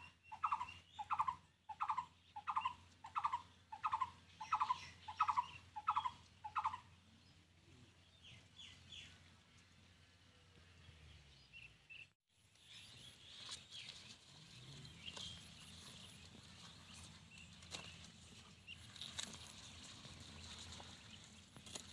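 A bird calls about ten times in a steady series, roughly one and a half calls a second, and stops about seven seconds in. After that there is only a quiet outdoor background with a few faint clicks.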